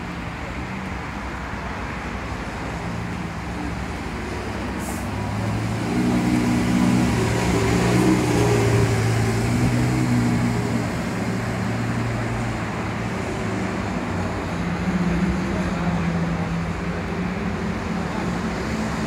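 Car engines running at low revs; one grows louder about six seconds in, its pitch shifting a little.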